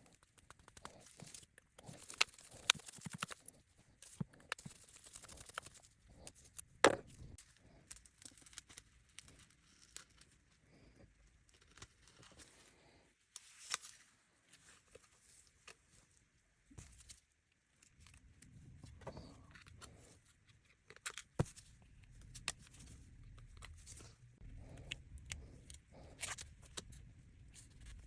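Scattered clicks, taps and short scrapes from hands and small tools working on smartphones during a repair. A low steady hum sets in about two-thirds of the way through.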